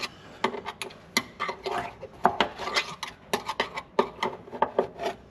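A small screwdriver's metal shaft turning a harness eye bolt to tighten it into a steel floor pan: irregular metal clicks and clinks with some scraping.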